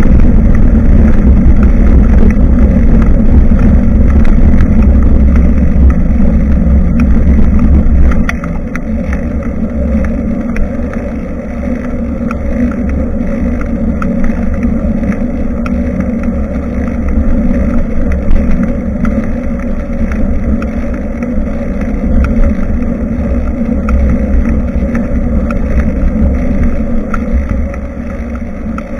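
Wind rumbling on a bike-mounted camera's microphone as the bicycle rides along, with faint ticks and rattles. It is loud for about the first eight seconds, then drops and rises and falls.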